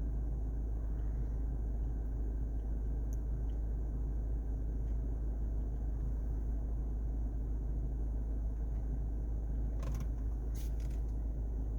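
Steady low rumble inside the cabin of a 2020 Subaru Forester with its engine idling, and a few faint clicks near the end.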